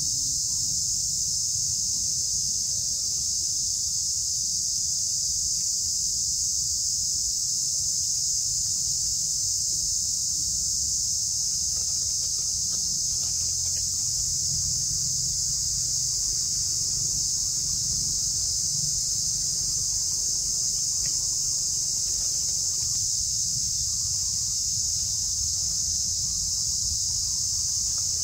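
Steady, high-pitched chorus of forest insects droning without a break, over a low rumble.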